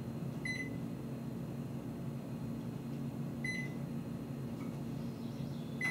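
Microwave oven running with a steady low hum, giving a short high beep three times, about three seconds apart.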